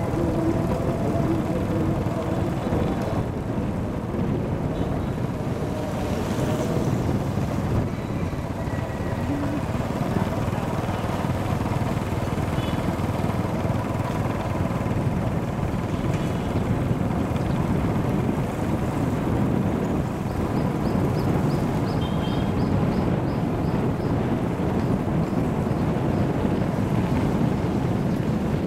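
Motorbike engine running steadily at cruising speed, heard from the moving bike, with wind rushing over the microphone.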